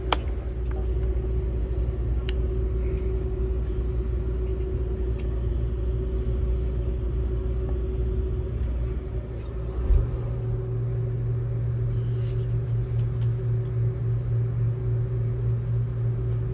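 Cabin noise of a Seibu 001 series Laview limited-express train running: a steady low rumble under a constant hum. A brief thump comes about ten seconds in, and the low rumble shifts up in pitch after it.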